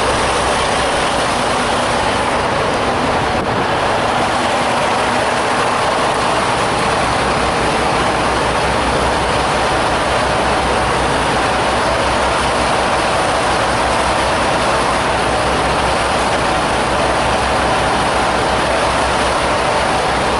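Heavy truck's diesel engine running with a steady, unchanging rumble.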